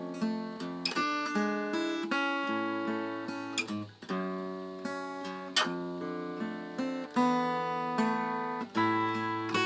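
Acoustic guitar played solo, chords picked and strummed, changing about every second.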